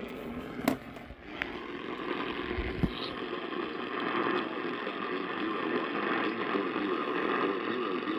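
Steady static hiss from a radio receiver after a transmission ends, with a few sharp clicks in the first three seconds.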